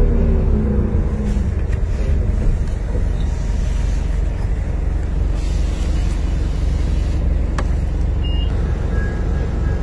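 Cabin sound of a 1995 New Flyer D40LF transit bus under way: its Detroit Diesel Series 50 engine and Allison transmission run with a steady low rumble. A falling whine fades out in the first second or so, and there is a single click about three-quarters of the way through.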